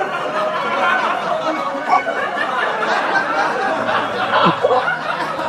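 Several people laughing and chattering at once, starting as the music cuts off.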